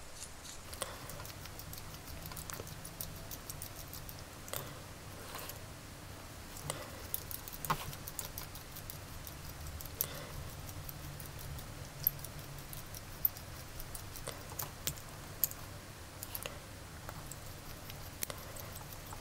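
Faint scattered ticks and scratches of a hand-turned pin vise drill bit boring into a thin plastic action-figure pelvis, over a low steady hum.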